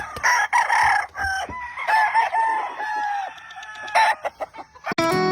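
Gamefowl roosters crowing and clucking, several calls overlapping. Guitar music starts just before the end.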